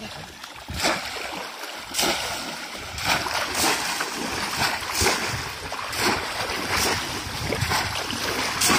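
Repeated splashing in shallow water as bamboo polo plunge-basket traps are thrust down into it and men wade through, a sudden splash about once a second over a steady sloshing of stirred water.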